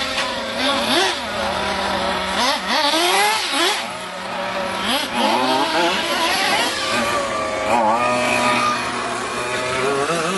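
Several radio-controlled cars' small two-stroke engines being driven hard, the pitch swooping up and down constantly as they rev and back off, with more than one engine heard at once.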